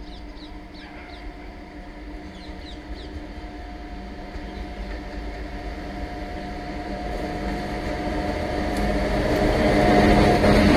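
Indian Railways WAP-7 electric locomotive approaching at the head of an express, a steady hum with several tones growing steadily louder as it nears and draws level near the end.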